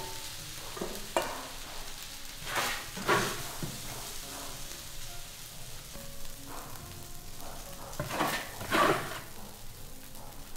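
Egg fried rice sizzling in a large wok, with a metal spatula scraping the wok in a few loud strokes as the rice is scooped out into a stainless steel bowl.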